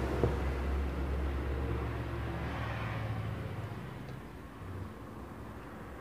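A low steady rumble that fades over about four seconds, with a single sharp click near the start as small parts are handled.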